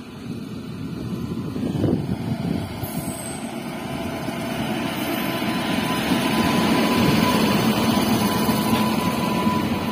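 Freight train hauled by two electric locomotives approaching and passing close by: a rumble of wheels on rail that grows steadily louder. A thin steady whine comes in about six seconds in.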